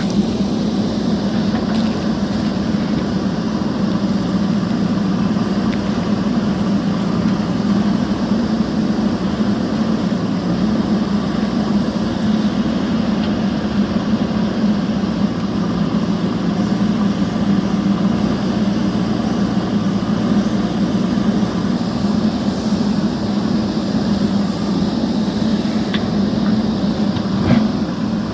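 A steady machine hum at a constant pitch, with a couple of faint clicks near the end.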